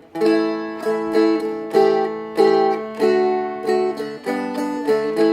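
Seagull Merlin M4, a four-string dulcimer-style instrument, playing a run of plucked chords through A, D and G, about two strikes a second, each one ringing on.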